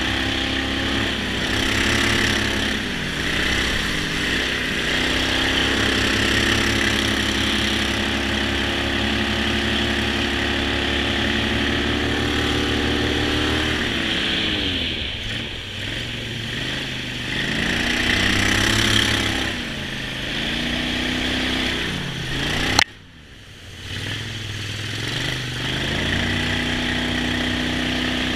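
Boat's outboard engine running at speed, its pitch dipping and rising again several times as the throttle is eased off and opened. A sharp click about five seconds before the end, after which the engine drops low for a moment and then picks up again.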